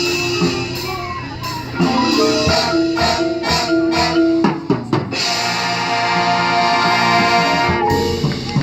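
High school marching band playing: winds and brass over drumline hits, building to a long full-band chord held from about five to eight seconds in.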